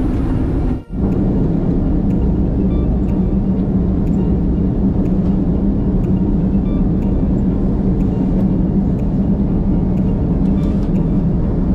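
A steady low engine drone with a constant hum, briefly cut out about a second in.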